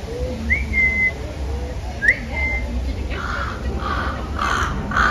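A crow cawing over and over, about two calls a second, starting about three seconds in. Before it, a short rising whistle sounds three times, about two seconds apart.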